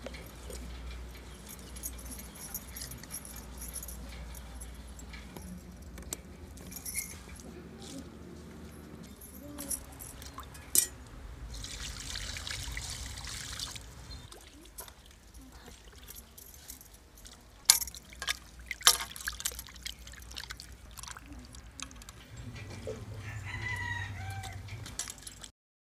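Water poured from a plastic mug into a steel pan of fish pieces, a splashing pour lasting a couple of seconds about halfway through. Around it come scattered sharp knocks and clicks of handling at the bowls, the loudest a little later.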